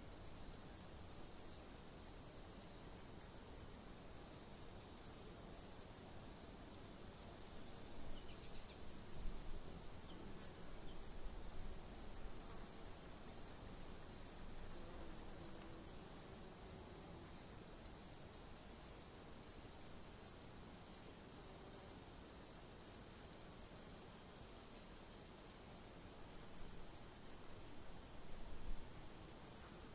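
Crickets chirping: one chirps evenly about three times a second over a continuous high-pitched insect trill.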